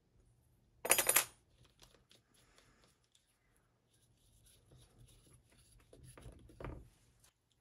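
Small metal parts of a magnetic base indicator holder arm being handled and assembled: a short rattle of sharp metallic clicks about a second in, then quieter handling of the metal parts and a duller knock near the end.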